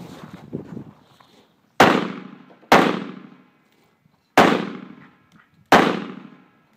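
Four rifle shots fired from a barricade during a practical rifle stage: two about a second apart, a pause of over a second, then two more. Each shot is a sharp crack with a ringing echo that dies away over most of a second.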